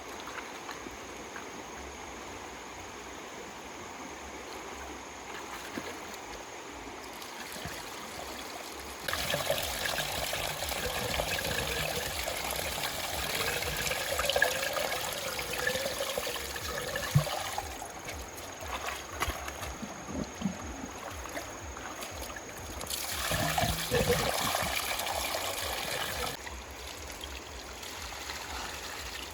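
Water trickling and splashing, loudest for about nine seconds starting a third of the way in and again for a few seconds later on.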